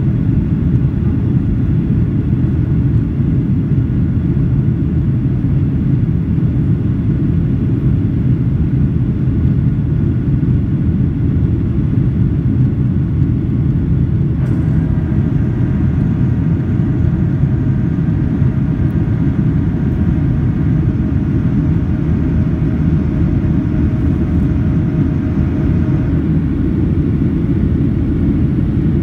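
Steady low noise of a Boeing 737's engines and airflow, heard from inside the cabin as the airliner climbs after takeoff. A faint higher tone joins for about ten seconds in the second half.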